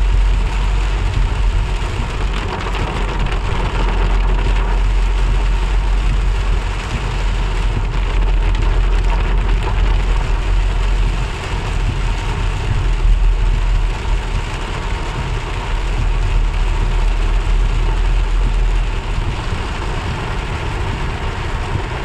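Heavy rain hitting a car's roof and windscreen, heard from inside the cabin, over the low rumble of the moving car's engine and tyres on the wet road. The rumble eases near the end.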